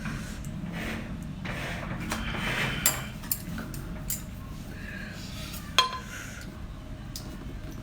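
Dishes and utensils clinking and scraping, with a few sharp clinks, over a steady low background hum.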